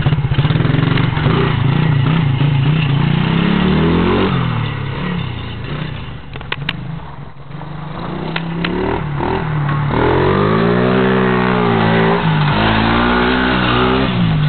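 Engine of a 70cc Chinese mini ATV being revved hard during drifting, its pitch rising and falling as the throttle is worked. It eases off about halfway, with a couple of sharp clicks, then climbs and dips again in quick throttle swings.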